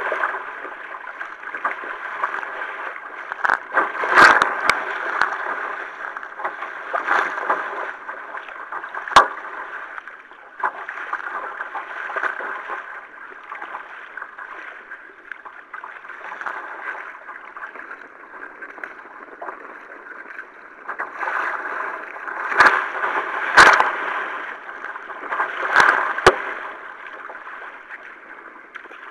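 Water rushing and sloshing along a kayak as it is paddled through choppy water, with spray hitting the deck. Several sharp splashes or knocks stand out, about four seconds in, near nine seconds, and three close together near the end.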